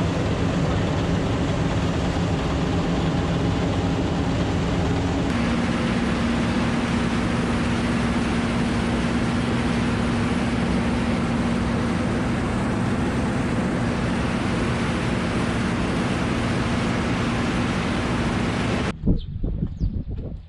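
Large farm machine's engine running steadily at constant speed, with a steady low hum under a dense mechanical noise. About five seconds in the note shifts abruptly to a slightly lower, stronger hum. Near the end it cuts to a much quieter stretch with wind noise and a few light knocks.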